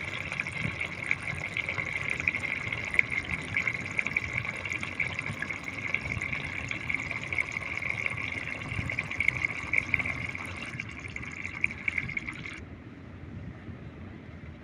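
Fish curry bubbling as it simmers in the pan, a dense fizzing crackle of many small bursting bubbles; it cuts off abruptly near the end.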